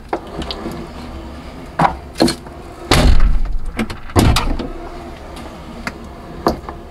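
Jeep Wrangler JKU swing-out tailgate shut with a heavy thud about three seconds in, then unlatched with a second thud about a second later and swung open. The new check strap lets it open without its old popping sound.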